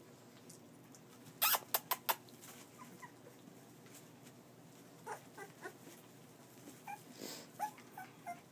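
Young boxer puppies giving short, small high squeaks and whimpers, scattered through the second half. A quick run of four or five sharp clicks or knocks about a second and a half in is the loudest sound.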